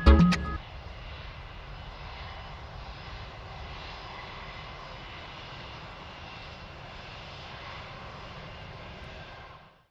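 Airplane engine noise: a steady drone with a faint high whine in it. It cuts off suddenly near the end.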